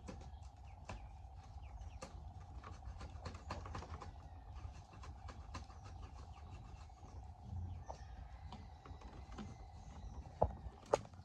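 Bamboo strips clicking and tapping irregularly as they are handled and woven, over a steady hum. Two sharper knocks come near the end.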